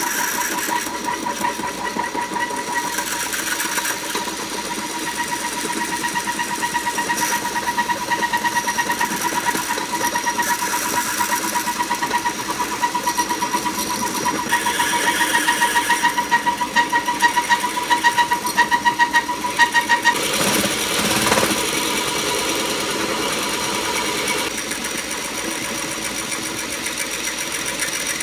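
A cordless drill spins a piston ring end-gap filer, grinding down the end gap of a piston ring with a steady whine and a rasp of metal. About twenty seconds in the whine stops and the rasping goes on.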